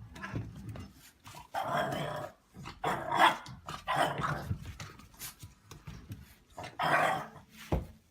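A dog growling and barking in several short outbursts, with a brief low thump near the end.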